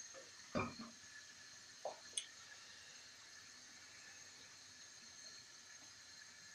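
Pancake batter sizzling faintly in butter in a non-stick wok, a steady soft hiss. About half a second in there is a knock, then a smaller knock and a sharp click near two seconds, as the plastic measuring jug and ladle are set down.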